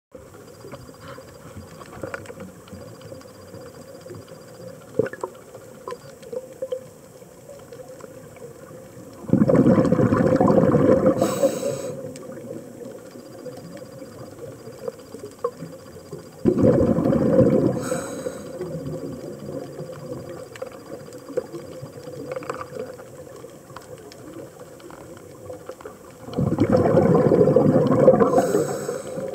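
Underwater, a scuba diver's regulator exhaust: three bursts of exhaled bubbles, each lasting about two seconds and coming roughly seven to ten seconds apart. Between them, faint scattered clicks over a steady low hum.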